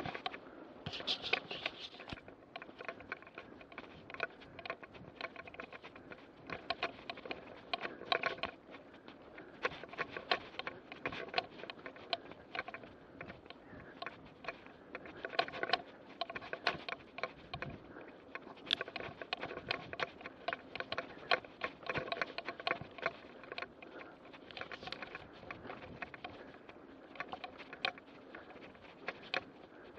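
A mountain bike rattling over a rough dirt cart track: a constant stream of irregular clicks and knocks from the bike and its handlebar-mounted camera jolting over the ruts.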